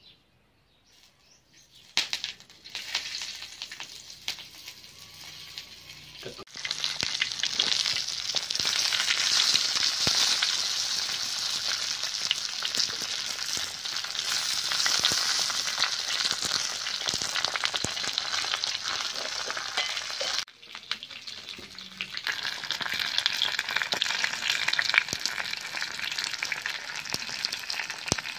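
Hot oil sizzling under banana-leaf-wrapped fish parcels laid on an iron dosa griddle. The sizzling starts about two seconds in, gets much louder a few seconds later and then goes on steadily, dipping briefly about two-thirds of the way through.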